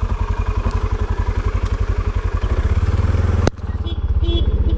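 ATV engine running steadily with an even, rapid putter. A single sharp click comes about three and a half seconds in.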